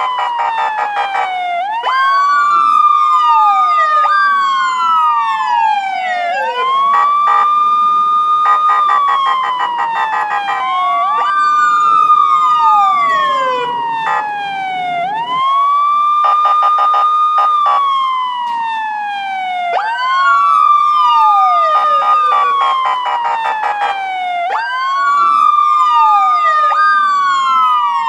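Police car siren wailing, its pitch rising, holding and falling in a cycle about every four and a half seconds, with a second wailing tone overlapping out of step.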